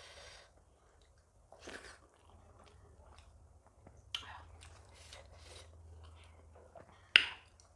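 A person chewing food close to the microphone, with wet mouth noises and two sharp smacks, about four seconds in and near the end, the second one the loudest.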